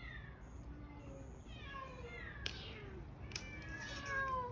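Several stray cats meowing over one another, each call falling in pitch and at different pitches, the loudest about four seconds in. Two sharp clicks in between.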